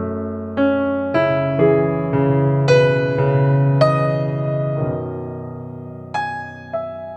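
Slow, soft piano music: single notes and chords struck about every half second and left to ring and fade, with a pause near the end before new notes enter.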